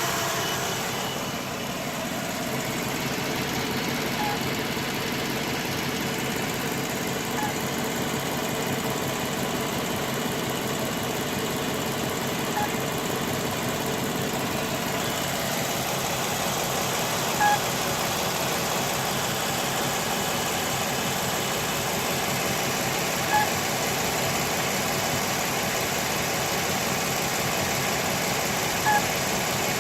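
2013 Jeep Wrangler's 3.6-litre V6 idling steadily, with a short high chirp every few seconds over the running noise. The noise is taken for a bad water pump squealing.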